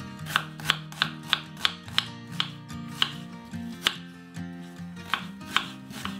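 Kitchen knife slicing an onion on a wooden cutting board: crisp knife strokes about three a second, with a short pause a little past the middle, over background music.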